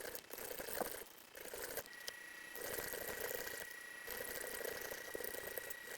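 Weston No. 32 electric meat grinder grinding tough lower-leg meat, a crackling, squishing mechanical noise that surges and eases about once a second, with a thin steady whine joining in about two seconds in.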